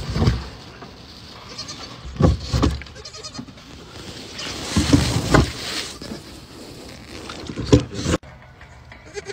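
Goats bleating several times in short calls.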